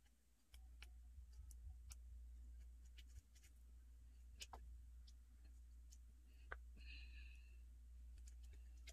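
Faint, irregular clicks and snips of a pair of scissors cutting a small strip by hand.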